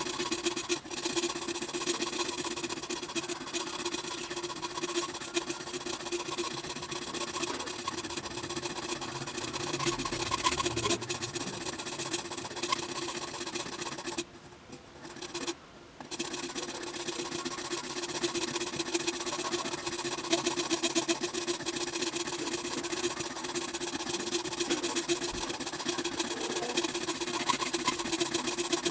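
Small electric power tool running at a steady pitch, with a continuous rasping, grinding sound as it works against the knife material; it stops for a moment about halfway through, then runs on.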